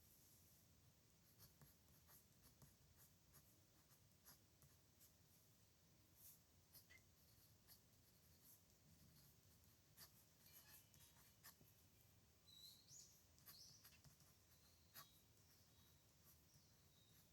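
Faint scratching of a pen on paper as someone writes by hand, in short irregular strokes, with a few short high squeaks about two-thirds of the way through.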